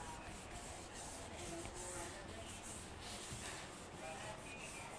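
Cloth wiping chalk off a chalkboard: faint, repeated swishing strokes.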